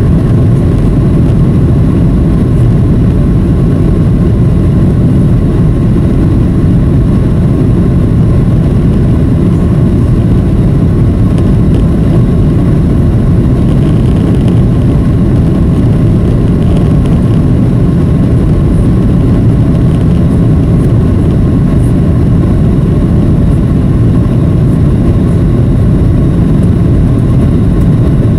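Boeing 737 cabin noise in flight, heard from a window seat over the wing: a loud, steady low rumble of jet engines and airflow, with a faint steady hum above it.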